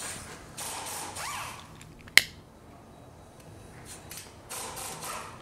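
Hose-fed air tool run in short bursts on the brake caliper's 17 mm slide pins, with a single sharp click about two seconds in.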